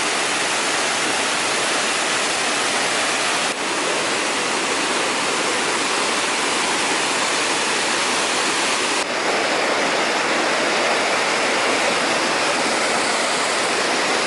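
Steady, loud rush of fast-running water, a jungle stream or waterfall. It changes abruptly twice, about three and a half and nine seconds in.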